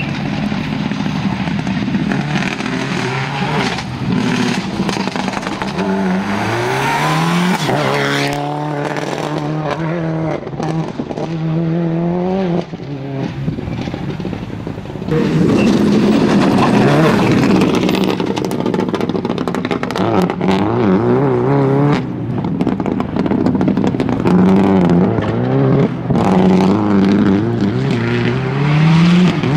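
Subaru Impreza rally car's flat-four engine revving hard at full throttle, its pitch climbing and dropping again at each gear change, growing louder in the second half.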